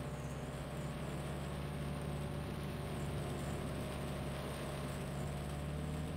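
A vehicle engine running steadily, its low hum held even under a constant wash of noise.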